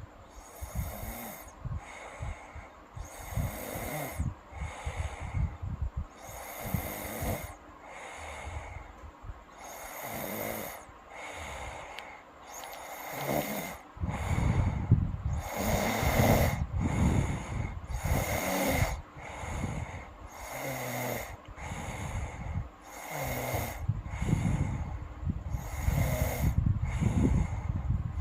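A girl snoring in her sleep, with a rhythmic noisy breath in and out every couple of seconds. The snores become louder and deeper from about halfway.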